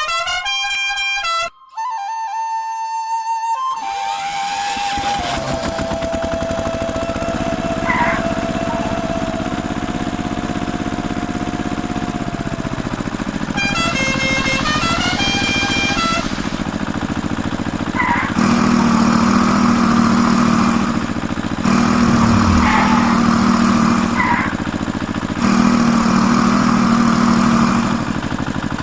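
A few seconds of flute-like music, then a small machine running steadily with a held whining tone, joined later by a low steady drone that comes and goes three times in long stretches.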